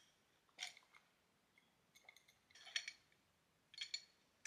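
A clear drinking glass and its straw clinking faintly a few times, short light taps with a slight ring, over near silence.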